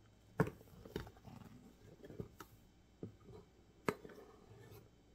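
A measuring cup scooping flour from a plastic flour bin, with soft scraping as it is leveled off with a knife and a handful of sharp clicks and knocks against the bin, the loudest about half a second in and near the end.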